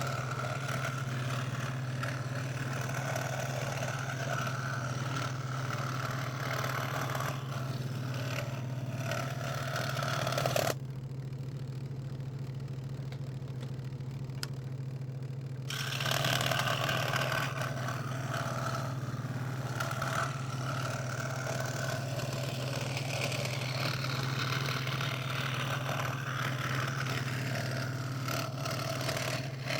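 Electric scroll saw running with a steady motor hum, its blade cutting through thin 3 mm craft plywood. About a third of the way in, the cutting noise drops away for a few seconds while the hum carries on.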